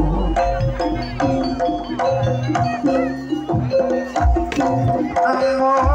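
Live jaranan ensemble music: hand drums and struck gamelan metallophones play a run of short, stepped notes, with deep drum beats underneath.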